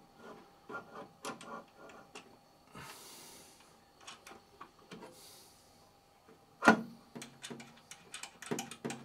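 Handling clicks and knocks as the resin vat is seated in an Anycubic Photon S resin 3D printer and its fixings are done up. There are two brief rubbing or sliding sounds, and one sharp knock about two-thirds of the way through.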